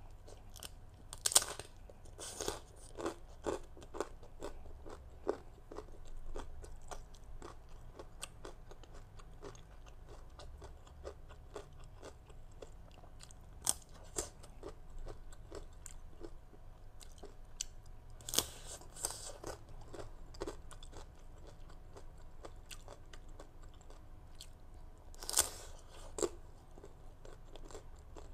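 Close-up crunching and chewing of a crisp toasted sesame rice cracker (bánh đa) topped with shrimp and green mango salad. Sharp, loud crunches come in clusters, in the first few seconds, again about 18 seconds in and about 25 seconds in, with softer chewing clicks between.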